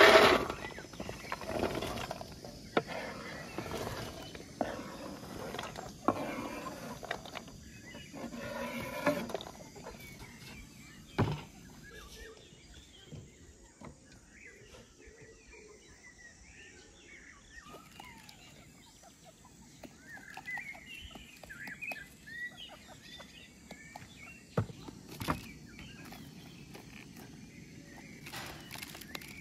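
Chopped green beans sliding off a wooden cutting board into a metal bowl: a loud clatter at the start, then several seconds of rustling and handling noises and a single knock. After that, quieter chicken and bird calls.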